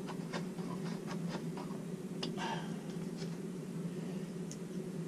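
Faint, irregular small clicks and light taps of small screws and plastic parts being handled and fitted with a screwdriver, over a steady low hum.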